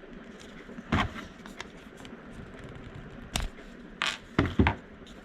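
Push-button switch parts being handled: a handful of scattered clicks and knocks with light scraping, the strongest two close together near the end.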